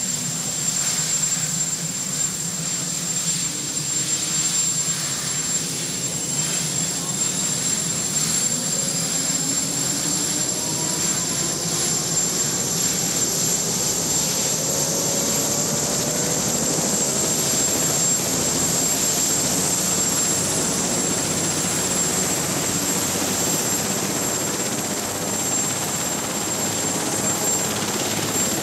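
Marine One, a Sikorsky VH-3 Sea King helicopter, running up on the ground with its rotor turning. Its twin turbine engines give a steady whine, with several whines rising in pitch over the first dozen seconds as the engines and rotor speed up, then holding steady.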